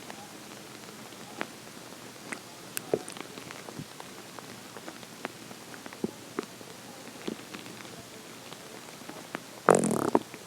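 Hungry, empty stomach gurgling: scattered small pops and bubbling clicks, then one louder growl lasting about half a second near the end.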